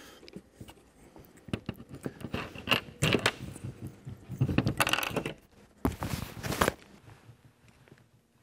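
Small clicks and scrapes of a plastic Deutsch pin-removal tool being worked into a round metal multi-pin connector, with pliers handling it, to release a terminal pin from the rubber seal. The handling comes in clusters and dies down near the end.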